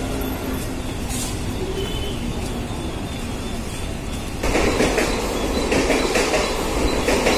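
Mumbai suburban local train (electric multiple unit) running, heard from inside the coach: a steady rumble of wheels on the rails that turns into a louder clatter about four and a half seconds in.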